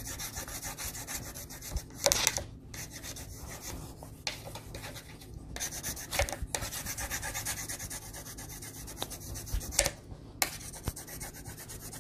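Colored pencils shading on paper over a clipboard: fast scratchy back-and-forth strokes, stopping briefly a few times.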